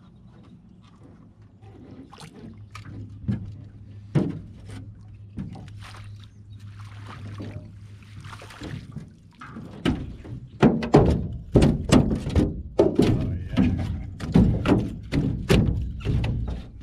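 Scattered light clicks and a brief hiss, then, from a little past halfway, a rapid run of loud thunks and knocks.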